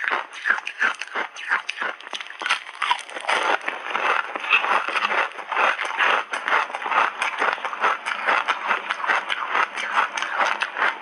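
Ice chips coated in matcha and milk powder being crunched between the teeth, a dense, rapid run of crisp cracks, along with a gloved hand scraping through more coated ice in a metal bowl.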